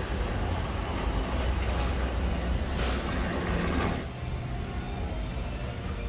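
Diesel engine of heavy construction machinery running steadily with a low rumble, a little quieter from about four seconds in.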